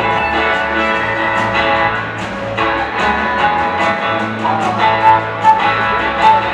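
Live country band playing in a large hall: strummed guitars over a steady drum beat. About four and a half seconds in, a lead melody line comes in on top with long held notes.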